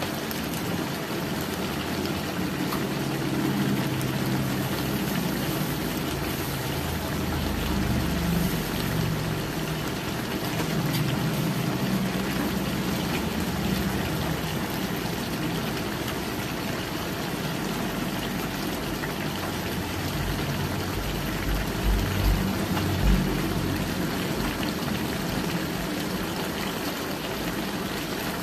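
Pork intestine adobo simmering in a wok on a gas stove: a steady bubbling, sizzling hiss of the boiling sauce. A low drone comes and goes underneath, and a few short low bumps sound about three quarters of the way through.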